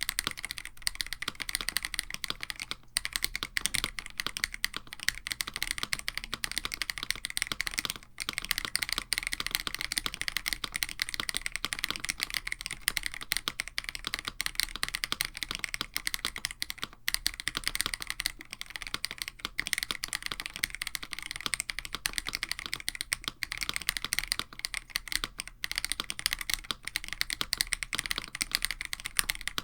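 Continuous fast typing on a KBD67 Lite mechanical keyboard with AKKO Radiant Red linear switches lubed with Krytox 205g0, an FR4 plate and GMK Striker clone keycaps: a dense stream of key clacks with a few brief pauses.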